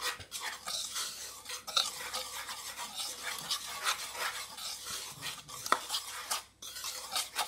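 Seasoned flour being stirred in a wooden bowl: a continuous soft, scraping rustle, with one sharp tick a little past two-thirds of the way through.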